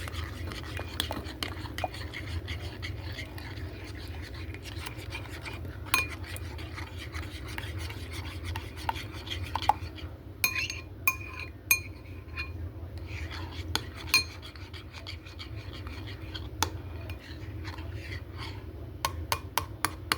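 Kitchen utensils and dishes clinking and tapping: scattered clicks, with a few short ringing clinks around the middle and again near the end, over a steady low hum.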